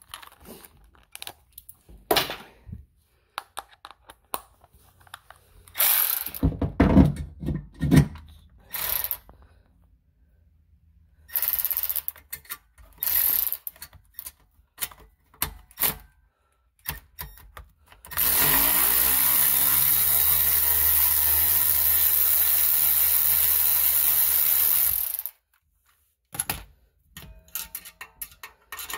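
A 10 mm socket on an extension undoing fasteners: scattered ratchet clicks and short tool bursts, then a power tool spins up, runs steadily for about seven seconds and stops abruptly.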